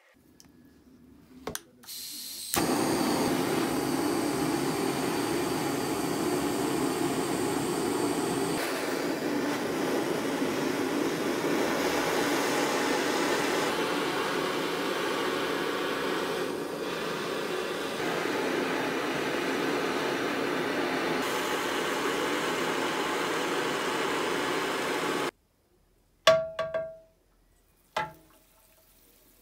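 Handheld gas torch flame burning steadily as it heats a steel wrench for fire bluing, starting about two and a half seconds in and stopping abruptly near the end. A few short, sharp sounds follow as the hot wrench goes into the oil bath.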